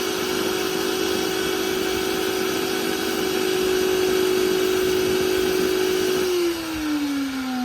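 Industrial vacuum cleaner motor running with a steady whine, then slowing with a falling pitch over about the last second. This is the sound of a failing winding on the motor's rotor.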